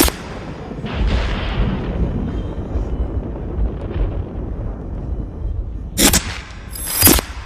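Horror sound effects: a sharp boom right at the start, then a low rumbling noise, then two loud sharp hits about a second apart near the end.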